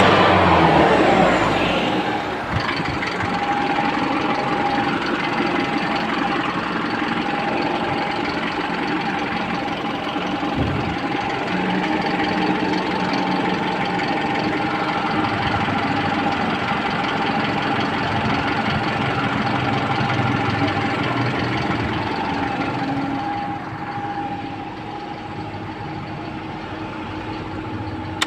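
Car engine running, winding down from a higher speed in the first couple of seconds and settling into a steady idle with a constant whine. It is running again after a no-start traced to the PCM power relay.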